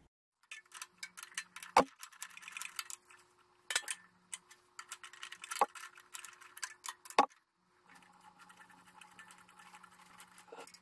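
Small metal clicks, ticks and scraping of a hand tool worked on tractor wiring, with four sharp clicks about two seconds apart; after the fourth the sound turns to a softer, steady scratching.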